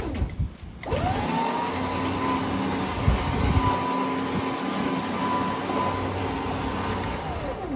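John Deere LA125 lawn tractor running at high throttle with a steady whine as it is driven up aluminium loading ramps into a pickup bed. Its revs dip and pick back up in the first second, there is a loud clunk about three seconds in, and the pitch falls away near the end as it is throttled down.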